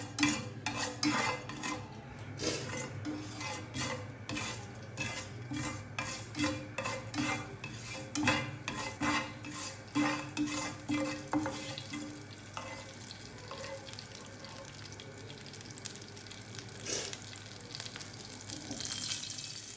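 A spatula scraping and tapping against a nonstick frying pan as nigella seeds (kalonji) are stirred in hot oil, over a light sizzle. The stirring stops about two-thirds of the way through, leaving the seeds frying with a soft sizzle.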